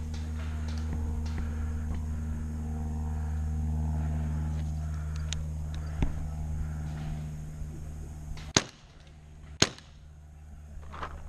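Paintball markers firing: a soft pop about six seconds in, then two loud sharp cracks about a second apart, over a steady low hum that fades away just before them.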